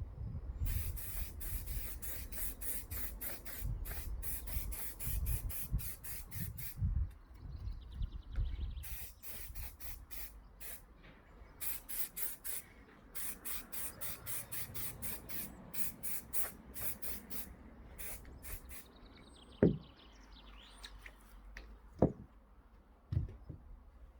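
Aerosol can of clear lacquer spraying in many short hissing bursts, several a second, in runs with brief pauses. Spraying stops near the end, and two sharp knocks follow.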